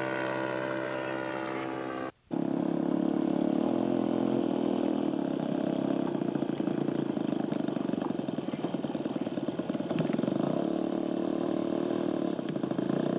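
Radio-control scale model airplane engine: its note falls in pitch for about two seconds, then after a short break it runs at a steady, even pitch.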